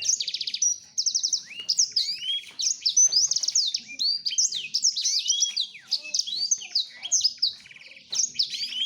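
Male black-throated canary (blackthroat) singing a fast, varied song of rapid trills and sweeping whistled notes, with a short lull near the end. It is a courtship song directed at a female.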